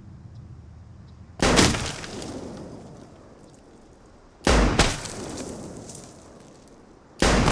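Three bolt-action rifle shots about three seconds apart, each a sharp crack followed by a long echoing tail.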